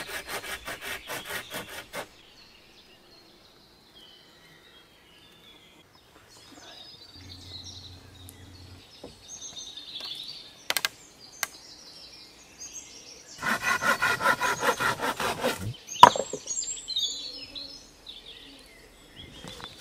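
Folding garden saw cutting through a wooden pole in quick, even strokes for about two seconds, then birds chirping through a quiet stretch. About thirteen seconds in comes a second, louder bout of sawing, which ends with a sharp wooden knock.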